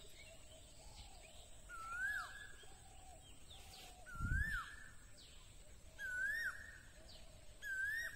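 A bird calling over and over, about every two seconds: each call a single whistled note that rises and then drops, with a fainter, lower call underneath. A short low thump about four seconds in.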